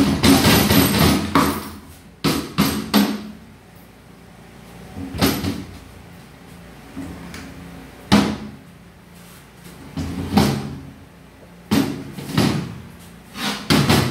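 Metal internals of a 2009 Honda CR-V automatic transmission clanking and rattling as they are handled and lifted out of the case on the bench. There are about a dozen separate clanks and rattles, the longest and loudest in the first two seconds.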